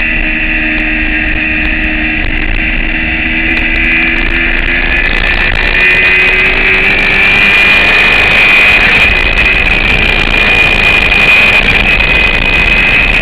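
Motorcycle engine running hard at track speed with heavy wind rush, getting louder about halfway through.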